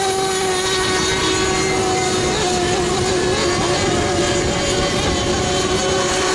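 Radio-controlled racing model boats' small two-stroke engines running flat out, a steady high-pitched whine with more than one engine at slightly different pitches.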